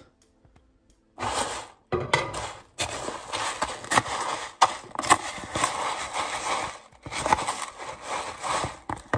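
A silicone spatula stirring crisp rice cereal into melted marshmallow in a plastic container: a dense crunchy rustle of the cereal with sharp clicks and scrapes. It starts about a second in and goes on steadily.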